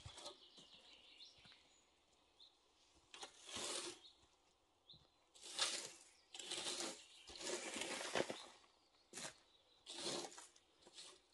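Repeated rustling scrapes through dry garden debris, about eight short strokes with pauses between them.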